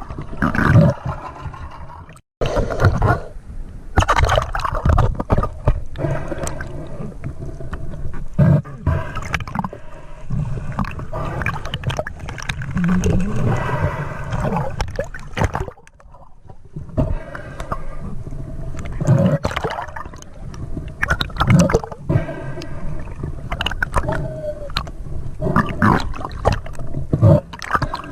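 Muffled water sounds: sloshing and gurgling water, surging unevenly, with two brief dropouts.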